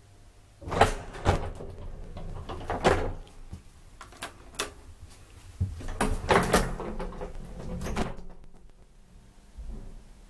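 Doors of a 1957 Haack traction elevator opening and closing: a string of sliding and clunking metal knocks over several seconds.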